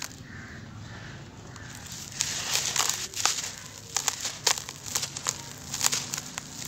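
Hands sifting and then squeezing dry, gritty charcoal powder: a soft sifting hiss at first, then dense, irregular crunching and crackling from about two seconds in as handfuls are crumbled.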